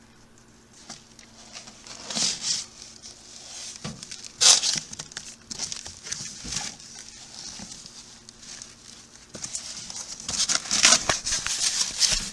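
Brown packing paper rustling and crinkling as it is pulled out of a cardboard box, with bubble wrap around the parts, in irregular bursts. The loudest burst comes about four and a half seconds in, and there is a busier stretch near the end.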